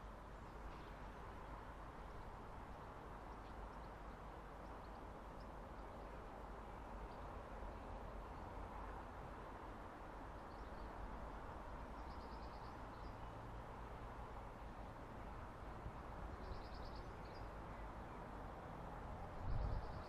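Quiet outdoor ambience with small birds chirping now and then in short, rapid trills. A brief low thump comes about half a second before the end.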